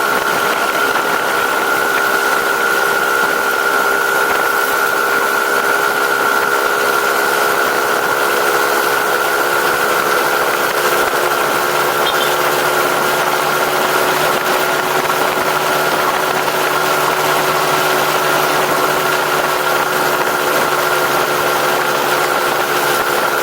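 Vehicle engine with a stock exhaust running steadily at an unchanging pitch, with a continuous rushing noise over it.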